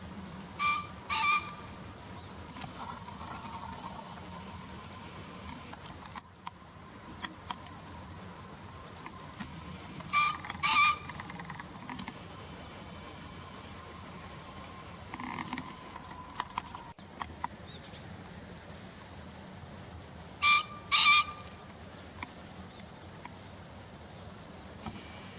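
Male green pheasant crowing its harsh two-note call three times, about ten seconds apart.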